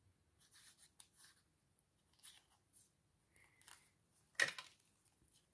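Faint rustling and small clicks of paper and card being handled during gluing, with one louder short knock about four and a half seconds in.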